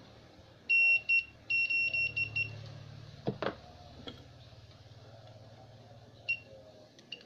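Homemade continuity tester's buzzer sounding in short, broken bursts of a high beep as its probes touch a speaker's terminals, followed by a few sharp clicks. The buzzing and crackle show that the speaker's voice coil has continuity and the speaker is good.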